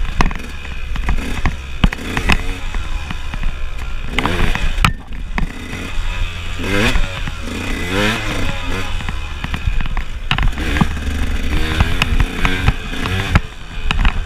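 KTM enduro dirt bike's engine revving up and down over and over while being ridden hard. Sharp knocks and rattles come from the bike bouncing over a rough dirt trail, over a rush of wind noise.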